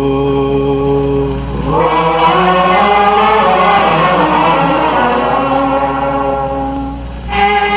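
Music from a classic Arabic song recording: long held notes from the ensemble, which swells fuller about two seconds in and thins out again near the end.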